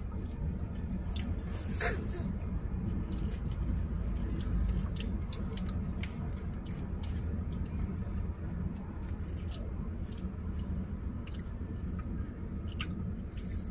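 Someone chewing a burger, with scattered short clicks and crinkles from its paper wrapper, over a steady low hum inside a car cabin.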